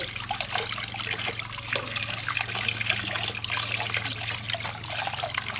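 Water running and trickling, with many small splashes, over a steady low hum.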